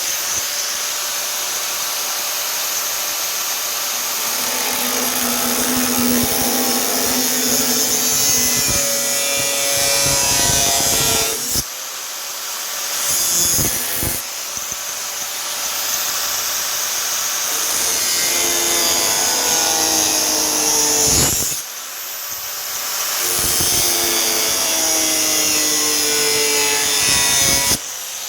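A high-speed cut-off tool cutting through the rusted sheet steel of a car door. It runs in three long cuts of several seconds each, with short breaks between them. The first and last cuts begin with a rising whine as the disc spins up.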